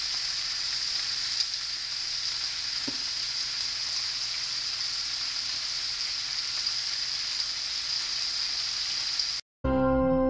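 Beef steak cubes sizzling steadily in hot oil in a cast-iron skillet. Near the end the sizzle cuts off abruptly and instrumental music begins.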